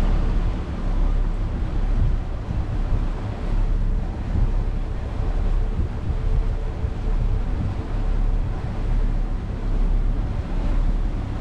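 Wind buffeting the microphone on a motor cruiser, over the low rumble of its engine and rushing water. The noise is loud and unsteady, surging up and down.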